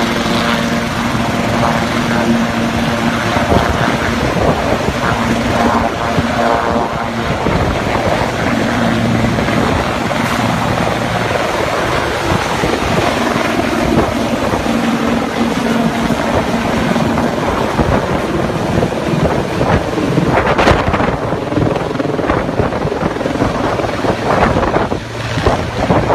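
Helicopter engine and rotor running steadily, with heavy wind buffeting the microphone.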